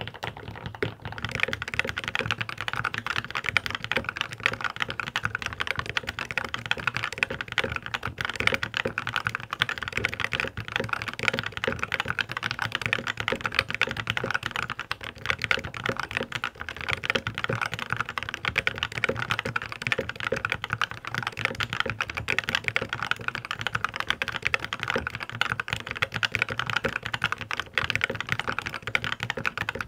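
Fast, continuous typing on a mechanical keyboard: dense key clacks with no pauses.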